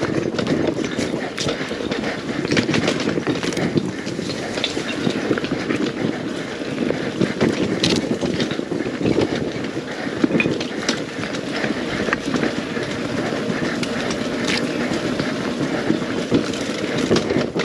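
Beta 300 RR single-cylinder two-stroke enduro bike engine running at low revs, with repeated knocks and clatter throughout.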